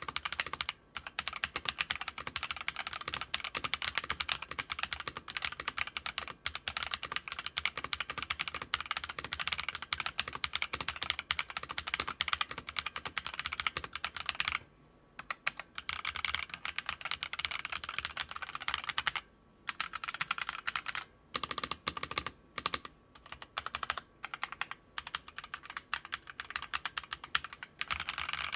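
Typing test on a Gamen Titan 7 96% mechanical keyboard with red linear switches: fast, continuous key clacking, broken by a few short pauses.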